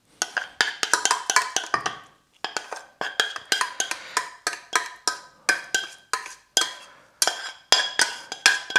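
A spoon knocking again and again against the cookware as cooked quinoa is dished out. Sharp clinks come two or three a second, each with a short ringing tone at the same pitch.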